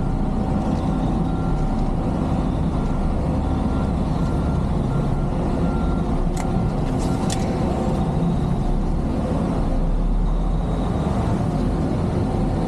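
Semi truck's diesel engine running, heard inside the cab, while its reversing alarm beeps steadily; the beeping stops about six seconds in with a couple of sharp clicks. Later the engine rumble swells slightly as the truck pulls forward to straighten its trailer.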